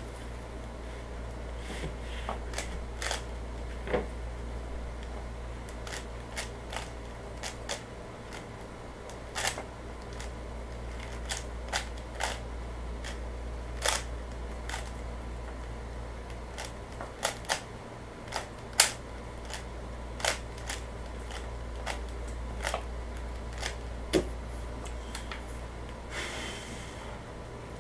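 Plastic 3x3 speed cube clicking as its layers are turned by hand while it is scrambled: irregular sharp clicks, a second or so apart, some louder than others, over a steady low hum.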